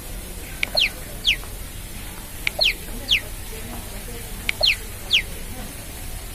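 A bird-like chirping call repeating at even intervals, about every two seconds. Each repeat is a short click followed by two quick high chirps that fall in pitch, over steady low background noise.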